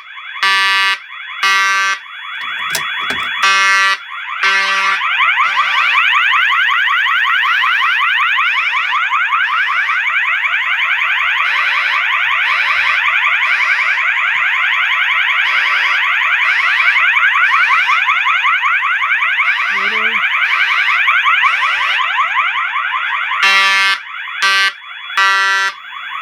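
Fire alarm test: an Edwards 892-2B sounding the three-pulse temporal pattern, joined about two seconds in by a beige System Sensor MASS sounder on a fast warble tone. Near the end the warble cuts out and the temporal pulses carry on alone.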